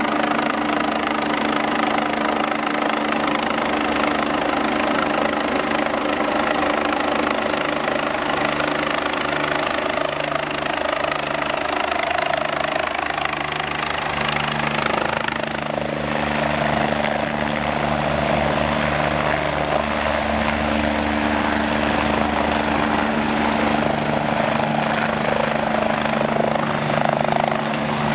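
Eurocopter BK 117 rescue helicopter's main rotor and twin turbine engines running steadily as it descends and hovers in to land. Constant low tones sit under the rotor noise.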